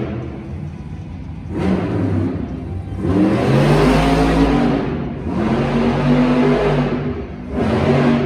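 Megalodon monster truck's supercharged V8 revving hard in about four bursts, the pitch rising and falling with each blip of the throttle as it drives and wheelies on the dirt.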